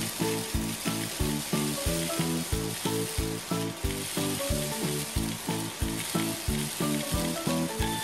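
Background music with a steady beat, over the steady hiss and crackle of a cordless stick vacuum sucking up dry rice, split peas and lentils from carpet.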